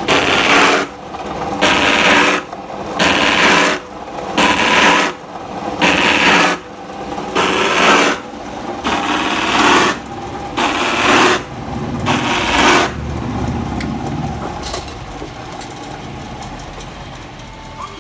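Electric motor with saw discs on its shaft cutting slots into a PVC borewell casing pipe: a loud rasping cut about every one and a half seconds as the pipe is pressed to the blades, nine times. About 13 seconds in the cutting stops, leaving a steadier, lower running sound.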